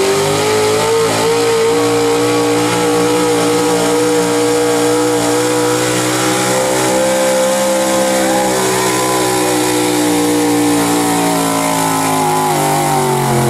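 GMC pickup truck's engine at full throttle under heavy load, pulling a weight-transfer sled. It is a loud, unbroken high-rpm note whose pitch climbs slightly in the first half, then slowly sags as the run goes on.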